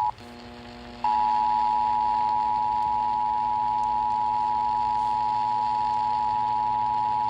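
Emergency Alert System attention tone: a loud, steady tone just under 1 kHz. It cuts out about a tenth of a second in, leaving a faint low hum for about a second, then resumes and holds steady, announcing the severe thunderstorm warning that follows.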